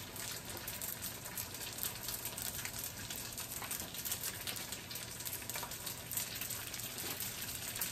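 Egg rolls frying in hot oil in an electric skillet: a steady sizzle with small crackles and occasional pops.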